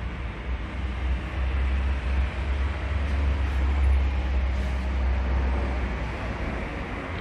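Steady city traffic noise from the street below: a continuous low rumble with an even hiss over it, a little louder in the middle.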